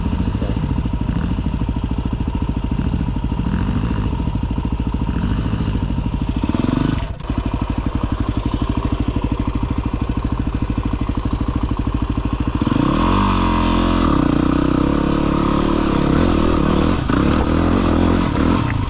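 Single-cylinder enduro motorcycle engine running at low revs. About two-thirds of the way through it is revved up and keeps running harder as the bike pulls away.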